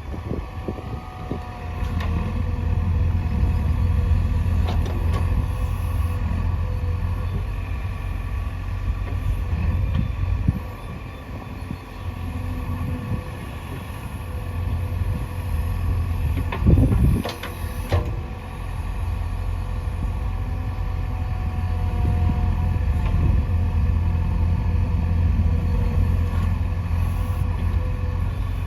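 JCB 3DX backhoe loader's diesel engine running under load, its loudness swelling and easing as the machine works, with a loud clunk about seventeen seconds in and a smaller one around ten seconds.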